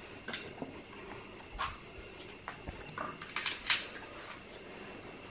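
Night chorus of crickets: a steady high-pitched trill, with frogs and other creatures giving several short chirping calls over it. The loudest call comes a little after halfway, and there are two faint low thuds.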